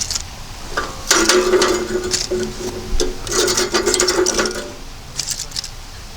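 Scraping, rasping rubbing with a squeaky edge, in two spells of about a second and a half each and a few short strokes near the end.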